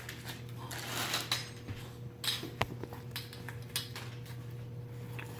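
Meat grinder parts, the sausage stuffing tubes, being handled and set down, giving scattered light clinks and knocks over a steady low hum.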